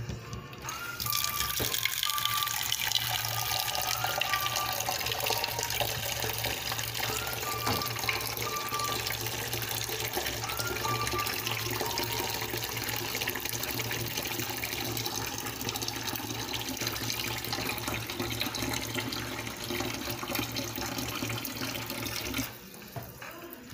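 Kitchen tap running in a steady stream into a small metal pot of leftover sauce in a stainless-steel sink. The water is cut off suddenly about a second before the end.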